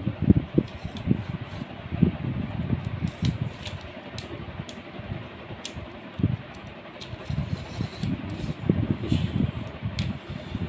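Light clicks and knocks from a folding phone tripod being handled, its legs and joints worked by hand, over the running noise of a fan with a low uneven rumble.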